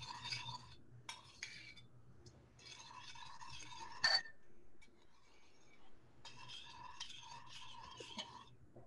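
A metal spoon stirring salt water in a small glass jar, scraping and clinking against the glass in repeated bursts, with a sharper clink about four seconds in.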